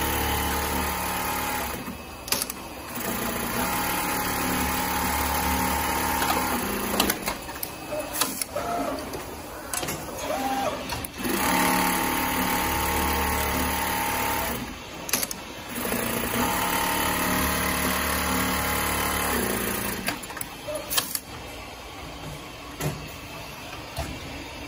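Automatic pocket-setter sewing machine stitching a pocket onto denim. The machine runs steadily in four spells of a few seconds each, with short pauses and sharp clicks between them, and goes quieter near the end.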